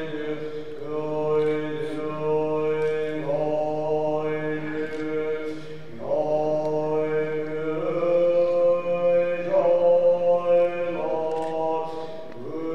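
A Tibetan Buddhist monk chanting alone into a microphone in long, held notes, the pitch stepping to a new note every two or three seconds.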